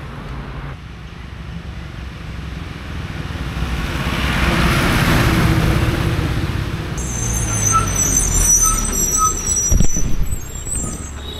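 Road traffic: a vehicle passes a few seconds in. Then a garbage compactor truck pulls up, its brakes squealing high for several seconds. A sharp thump comes near the end as the camera is handled.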